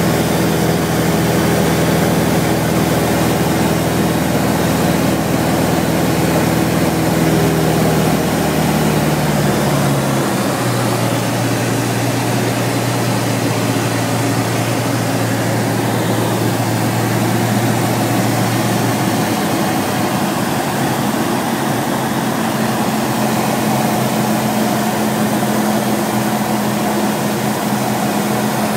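Robin DR400's four-cylinder Lycoming piston engine and propeller running steadily over constant airflow hiss, heard from inside the cabin. The engine note drops in a couple of steps about eight to ten seconds in as power is reduced, then holds steady.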